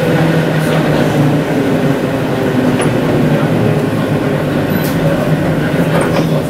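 Gotha tramcar running along street track, heard from the driver's cab: a steady electric traction hum with wheel-on-rail rumble and a few sharp clicks.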